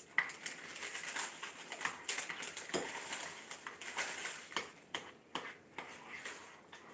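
Faint clicking and scraping of a spoon stirring brown sugar into a bowl of butter-and-brown-sugar glaze, with more sugar being poured in from a plastic bag to thicken it. There is a sharp click about a quarter second in.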